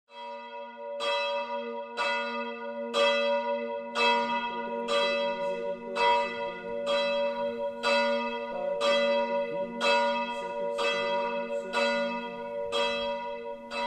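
Church bell rung from a hand-pulled bell rope, struck about once a second, its tone ringing on between strokes.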